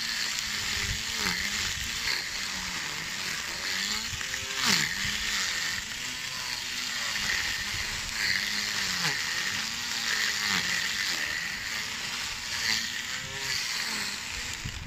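Small electric grass trimmer with a head-mounted motor running while its cutting line trims grass along a curb edge. The motor's pitch rises and falls about once a second as the line bites into the grass and frees up again, over a steady whirring hiss.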